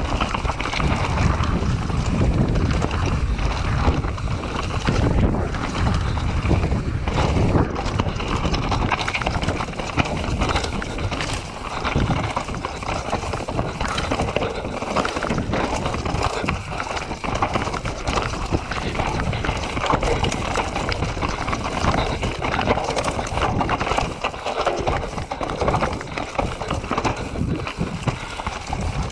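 Cube Stereo 150 full-suspension mountain bike riding down rocky singletrack: tyres rolling over loose stones and dry leaves, with a constant run of knocks and rattles from the bike, and wind noise on the camera microphone.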